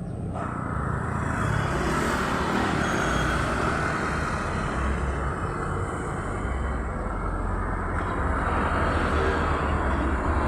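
Roadside traffic: vehicles passing with steady tyre and engine noise and a low engine rumble.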